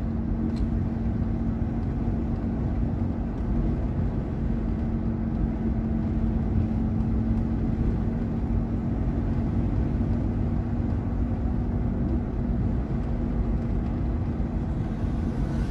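Steady rumble of a car driving at cruising speed, heard from inside the cabin: tyre and engine noise with a constant low hum.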